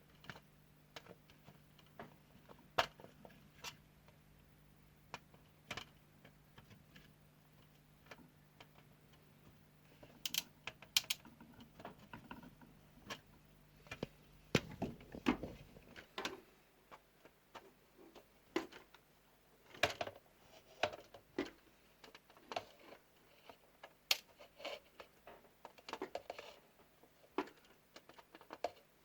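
Irregular small clicks and taps of hand tools on a workbench while LEDs are desoldered from an LED light strip. A faint low hum runs under them and stops about halfway through.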